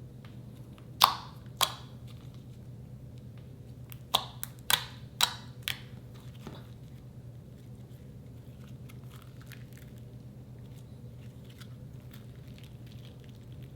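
Slime being pressed and squished, giving sharp pops: two about a second in, then a quick run of five about four seconds in, followed by faint crackling. A steady low hum runs underneath.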